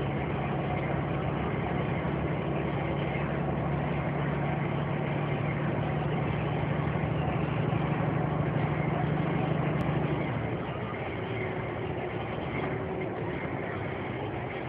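A lorry's engine running with road noise, heard from inside the cab. The steady engine hum drops away about ten seconds in, and the overall level falls a little.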